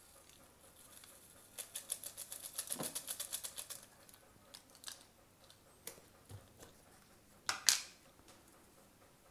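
A rapid run of light ticks, about nine a second for two seconds, as an instant-coffee sachet is shaken and tapped out into a plastic blender jug. A few scattered clicks follow, then a louder sharp plastic pop near the end as the lid is pulled off a tin of Nesquik.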